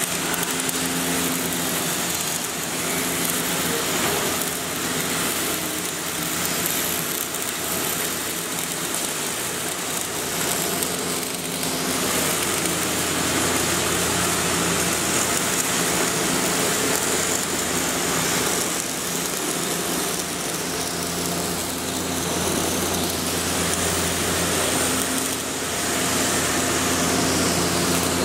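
Welding-shop noise: the steady crackling hiss of arc welding over a constant low machine hum.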